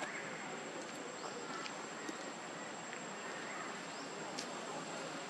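Outdoor ambience with a steady high-pitched insect drone, plus a couple of faint short rising chirps, about a second and four seconds in.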